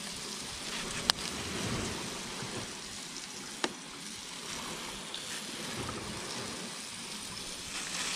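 Floured calamari and octopus frying in hot oil in a pan on a portable gas stove, a steady sizzle. Two sharp clicks cut through it, one about a second in and another a few seconds later.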